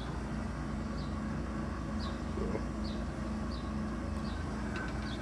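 Air-conditioning unit running with a steady low hum, cooling properly. Faint short high chirps come about once a second over it.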